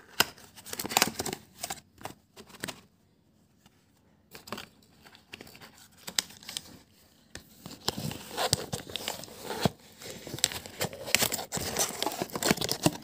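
Small cardboard carton being handled and opened by hand: paperboard flaps scraping, rubbing and crinkling in irregular bursts, with a short lull about three seconds in and busier handling near the end.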